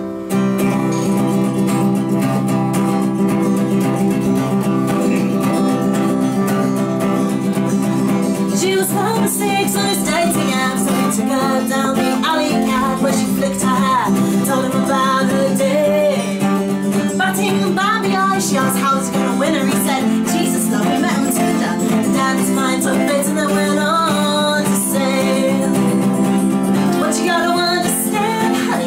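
A woman singing to her own strummed acoustic guitar. The guitar plays alone at first, and her voice comes in about eight seconds in.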